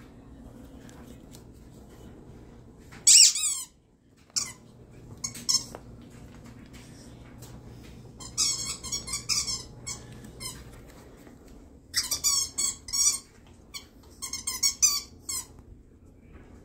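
A rubber squeaky dog toy squeaking: one loud squeak about three seconds in, then several runs of quick repeated squeaks, about five a second.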